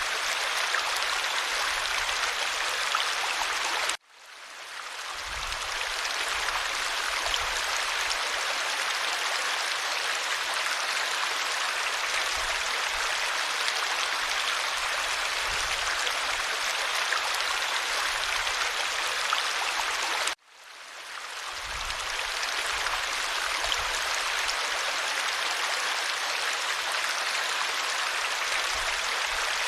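Stream water flowing steadily, an even rushing hiss. It cuts out suddenly twice and fades back in over a couple of seconds each time.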